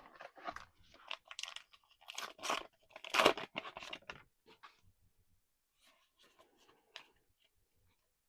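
Foil booster-pack wrapper crinkling and crackling as it is torn open and handled for about four seconds, loudest about three seconds in, followed by faint light handling sounds.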